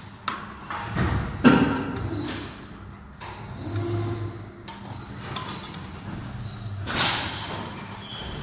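Thin polystyrene cups and plastic film rustling and crackling as a stack of disposable clear cups is handled and packed by hand. There is a sharp crackle about a second and a half in and a longer rustle near the end, over a faint steady low hum.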